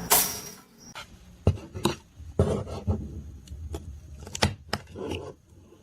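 A short burst of noise, then a string of irregular sharp clicks and light knocks, about a dozen over several seconds.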